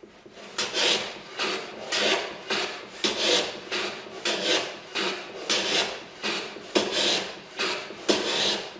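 Hand plane shooting a face miter on a shooting board: a quick, steady run of back-and-forth strokes, each a rasping hiss of the blade shaving the mitred end of the workpiece, several starting with a sharp click.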